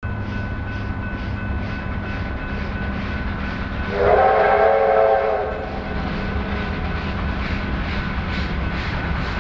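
Double-headed R class steam locomotives approaching, their exhaust beating at about two a second. About four seconds in, a steam whistle sounds one chime blast of about a second and a half.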